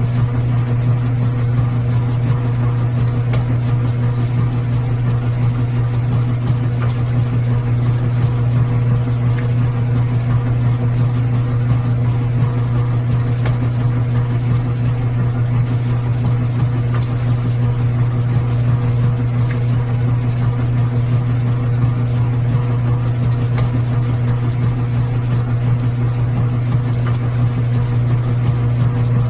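Washing machine running with a steady, even motor hum and a few faint ticks.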